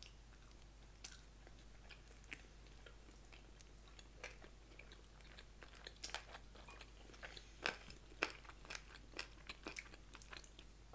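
A person chewing and crunching food with bites, quiet, with scattered short crackly clicks that come more often in the second half.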